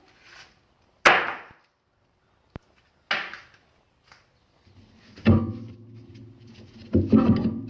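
A few separate sharp knocks and clunks, as of metal parts or tools being handled and set down: the loudest about a second in, another about three seconds in, and a heavier one about five seconds in, after which a low steady hum carries on.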